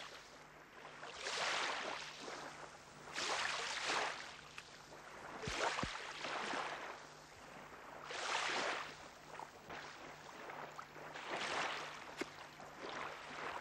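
Wet fishing net being hauled and flung through shallow water on a tidal mudflat: water sloshing and splashing in swells that come about every two to three seconds, with a low steady hum underneath and a couple of soft knocks about halfway.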